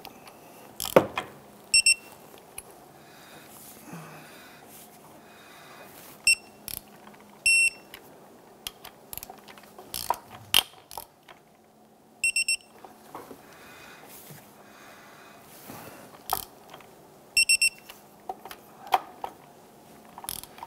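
A digital torque wrench beeps in groups of two or three short high beeps, several times over, as the cover bolts come up to 18 ft-lb. Sharp ratchet clicks and metal knocks fall between the beeps.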